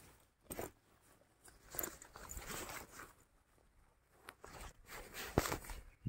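Faint, scattered rustling and crunching in grass and leaves, with a sharp snap about five seconds in.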